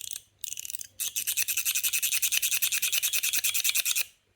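Stainless steel fidget slider, a clone of the KOVO Feel floating light slider, being worked by hand: two short bursts of fast, high metallic clicking, then an unbroken run of rapid clicks from about a second in that stops just before the end.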